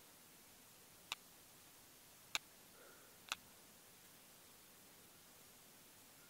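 Three short, sharp clicks about a second apart as the touchscreen of an LG L40 smartphone is tapped, over a faint steady hiss.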